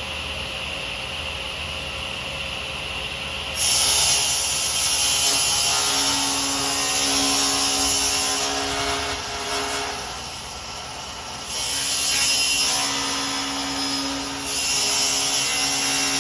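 Table saw running, then cutting into a foam-core composite panel with a Filon skin from about three and a half seconds in. The cutting noise is loud and steady, easing off briefly twice.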